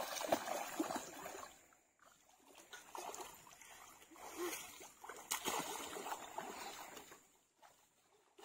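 Water splashing and sloshing as children swim and kick in a shallow river, in uneven bursts with a lull about two seconds in.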